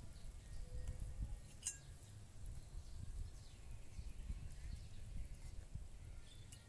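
Quiet outdoor background with a low, fluctuating rumble and a single light click about one and a half seconds in.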